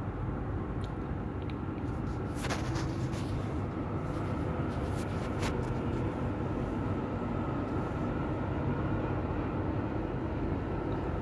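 Steady low roar of strong sandstorm wind, with a few faint clicks.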